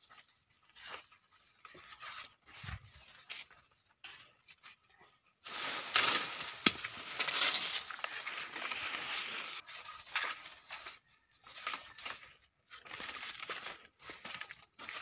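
Rustling and crackling of dry leaf litter and foliage, in short scattered bursts with a denser, louder stretch of rustling from about five and a half to ten seconds in.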